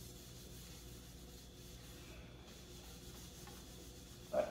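Faint rubbing of a cloth rag wiping a thin hardwood board wet with mineral spirits, over a low steady hum; a brief vocal sound near the end.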